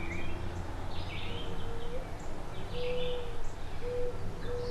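An owl hooting, a short series of four low, even hoots, with songbirds chirping over it.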